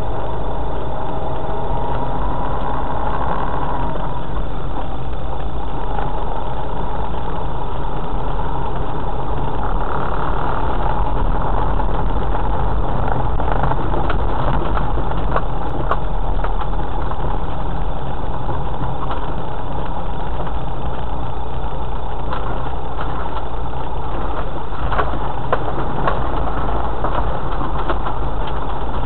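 Cabin noise of a 4x4 driving slowly along a rough unsurfaced lane: the engine running steadily with low tyre and road rumble, and scattered short knocks and rattles from the rough track.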